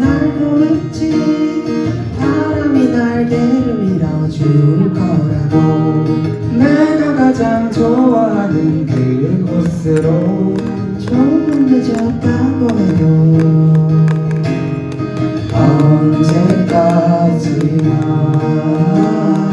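Acoustic guitar music without words: strummed chords under a melody line that slides up and down in pitch.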